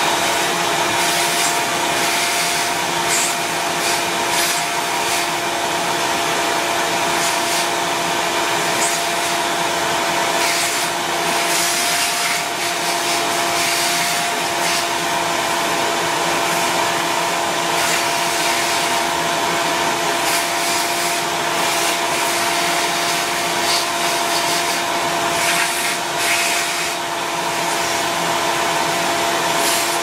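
Shop vacuum running steadily with a constant motor whine, its hose nozzle worked over a router's open switch housing to clear fine dust from the power switch. Short hissing rattles come and go as the nozzle moves.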